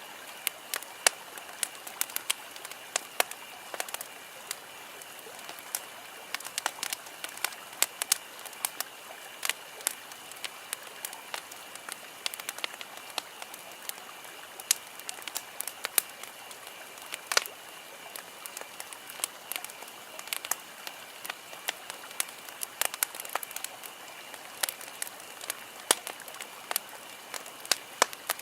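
Campfire crackling, with irregular sharp snaps and pops, several a second, over a steady hiss.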